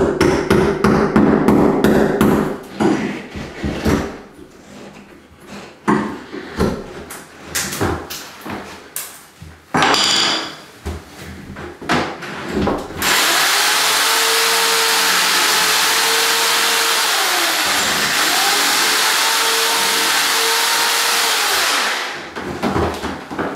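Knocks and clicks of hand work on the wall, then a power drill running steadily for about nine seconds, slowing and picking up again about halfway through.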